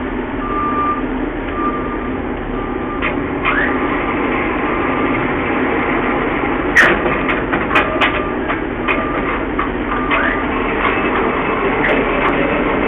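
A heavy vehicle's engine running while a reversing alarm beeps about once a second, with a few sharp knocks and clanks about seven seconds in.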